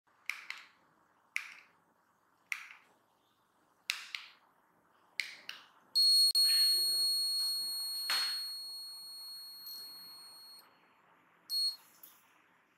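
Plastic buttons on a DESi Utopic R lock's master remote clicking several times, then the lock sounding a loud, high electronic tone that holds and fades over about four seconds, and a short beep near the end as it accepts the pairing step.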